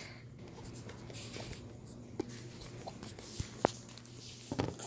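Faint rustling and scraping of a phone being handled close to its microphone, with a few light clicks, over a steady low hum.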